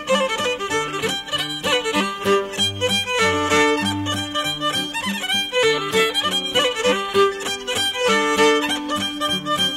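Recorded Irish traditional instrumental music: a quick melody of many short notes with held low notes underneath.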